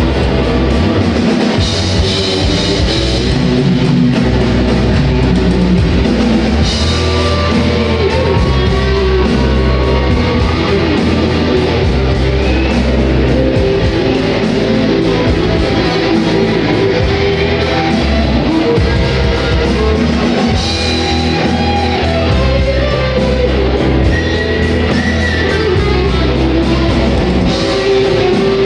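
A rock band playing live through a stage PA: electric guitars over a steady drum-kit beat and heavy bass, loud and unbroken.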